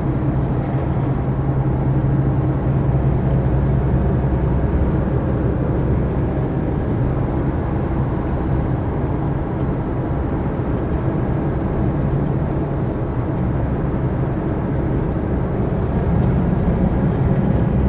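Steady in-cab drone of a Chevrolet S10 pickup while driving, with engine and road noise and a strong low hum. This is the strange noise the owner is demonstrating and considers not normal, which grows with engine speed.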